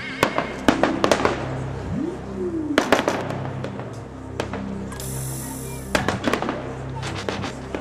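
Fireworks shells bursting in a series of sharp bangs: a cluster about a second in, another near three seconds, and more from about six seconds on. Added background music plays under the bangs throughout.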